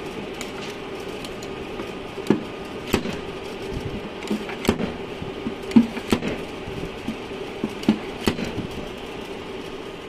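Dent puller machine working on a car's steel quarter panel: a steady hum with a series of irregular sharp snaps as the puller's gun is applied to the welded pull tabs.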